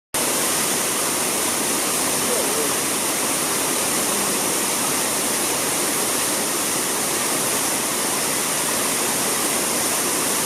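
Fountain jets and stepped cascades splashing into a channel: a steady, even rush of water.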